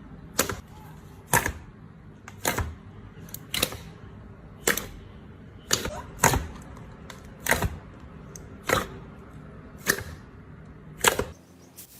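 Slime making sharp popping clicks about once a second, some in quick pairs.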